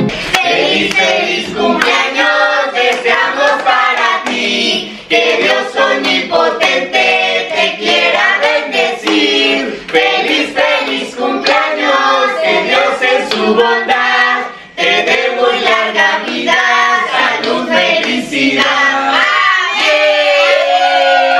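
A family of adults and children singing a birthday song together, clapping in time throughout, ending on a long held note.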